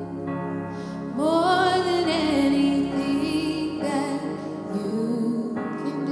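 Live worship band playing a slow ballad: a woman singing over sustained keyboard chords. Her phrase enters about a second in on a rising note and carries on in held notes with vibrato.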